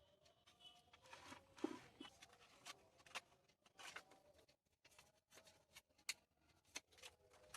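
Near silence: faint room tone with scattered small clicks and rustles, about one or two a second.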